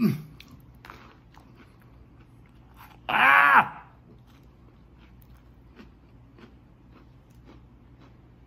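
A man biting into and chewing a flour tortilla wrapped around Oreo cookies and ranch dressing, with faint crunches about twice a second. About three seconds in comes a loud, short groan of disgust whose pitch rises then falls.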